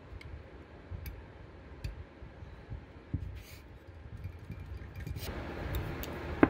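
Faint, scattered clicks and taps of small metal carburetor parts being handled over a low background rumble. About five seconds in a louder noisy wash comes in, and a single sharp click follows near the end.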